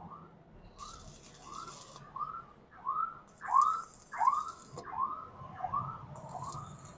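Stick welding with 2.5 mm electrodes: the arc crackles and hisses in three short bursts, about a second in, from about three to four and a half seconds, and near the end, going quiet in between while the electrode tip glows. Over it, a louder chirp that rises and falls in pitch repeats about three times every two seconds.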